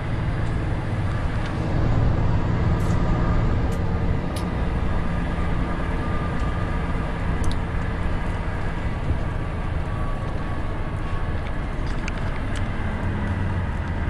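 Cab interior sound of a Volvo FH500 truck's 13-litre inline-six diesel running steadily as the truck rolls slowly, a low drone with a few light clicks.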